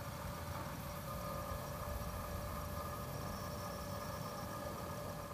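Steady rumbling background noise with hiss and a faint steady hum.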